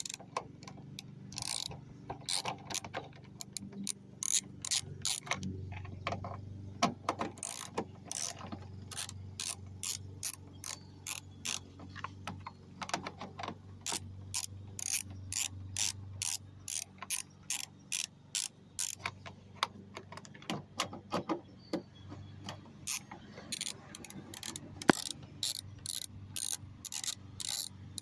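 Hand ratchet wrench clicking in repeated runs of several clicks a second, with short pauses between runs, as the 8 mm tail-light bolts are backed out.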